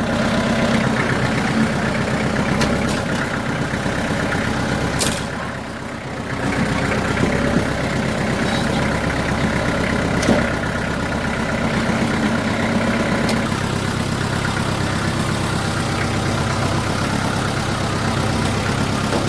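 Tractor engine running steadily while the tractor pushes a bar against a rear tire to break its bead from the rim. About six seconds in it eases off briefly, then picks up again, with a couple of short sharp knocks.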